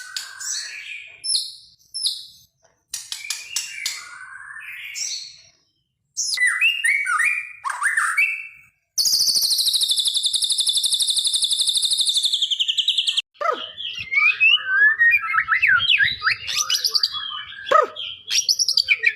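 White-rumped shama (Medan murai) singing: varied whistled phrases broken by sharp clicks, then a long rapid trill of about four seconds in the middle, followed by a fast run of short chattering notes.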